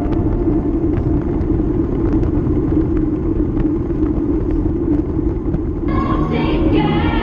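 Steady wind and road rumble picked up by a camera riding along on a bicycle. Music comes back in about six seconds in.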